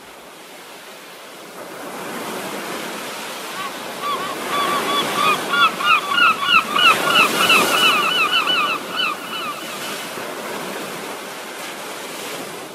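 Ocean surf washing steadily, with a gull crying in a rapid run of short calls from about four to nine and a half seconds in.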